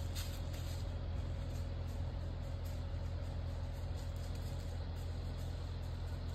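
Steady low hum of an idling engine, even and unbroken, with a few faint higher steady tones over it.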